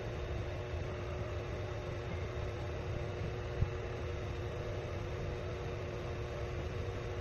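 Steady mechanical hum with a low rumble and a few constant tones. One short knock about three and a half seconds in.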